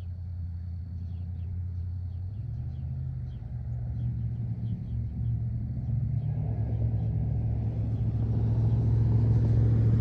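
Motor vehicle engine and road rumble, steady and low, slowly getting louder.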